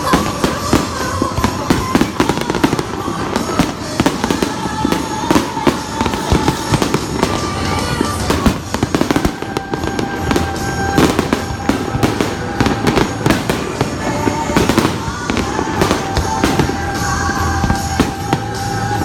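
Fireworks going off continuously: a dense run of sharp bangs and crackling, over background music with long held notes.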